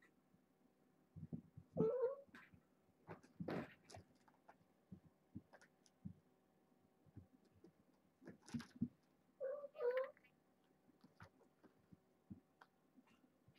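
A cat meows twice, one short call about two seconds in and another about ten seconds in, among scattered soft thumps and knocks from kittens playing on a carpeted cat tree.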